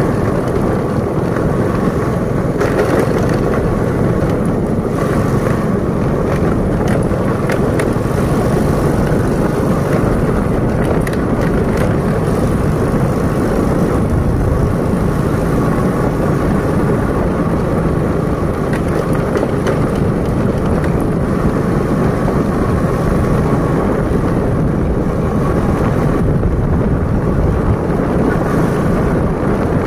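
Vehicle travelling steadily along a rough dirt-and-gravel road: engine running with constant tyre and road noise.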